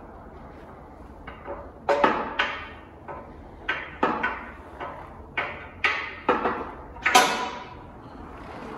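A machined 6000-series aluminium chassis plate being worked loose and lifted off a motorcycle frame by hand: about a dozen sharp knocks and clanks, the loudest near the end.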